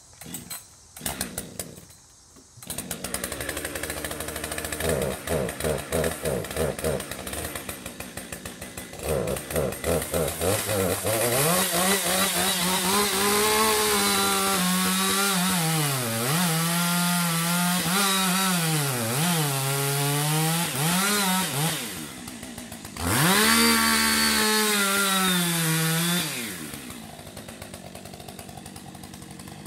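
Chainsaw felling a tree. The engine putters at idle, then revs up and down repeatedly while cutting, and a second full-throttle burst near the end drops back down.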